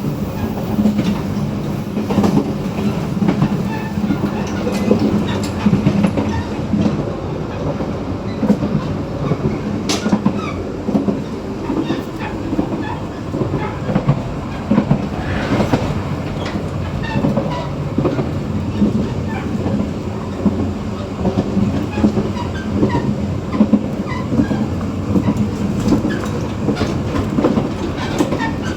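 Taroko Express (TEMU1000 tilting EMU) heard at the connection between two cars while running at speed: a steady rumble with many irregular clicks and knocks of wheels and couplings over the track.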